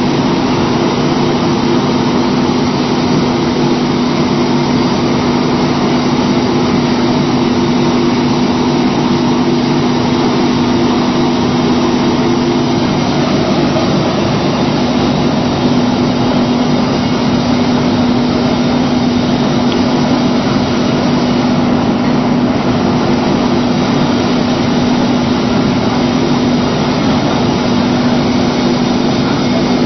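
Briquetting machine running steadily under load, a loud, constant mechanical drone with a steady hum.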